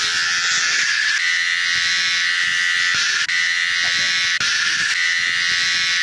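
Electric-shaver simulator app on a smartphone playing a steady electric razor buzz through the phone's speaker, with a couple of brief dips.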